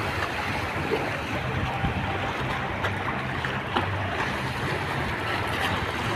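Choppy river water sloshing and lapping at the embankment edge, a steady wash with a low hum underneath.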